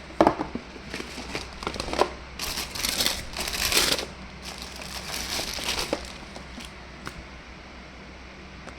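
Packaging being handled and unwrapped: crinkling and rustling with a few sharp clicks and taps. It is loudest in the middle and dies away after about six seconds.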